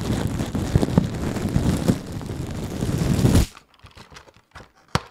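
Clear plastic wrapper crinkled right against the microphone: a loud, dense crackling that stops abruptly about three and a half seconds in, followed by a few faint clicks.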